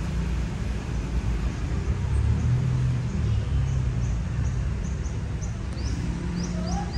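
Steady low rumble of road traffic. From about three and a half seconds in, a run of short, high bird chirps repeats about three times a second.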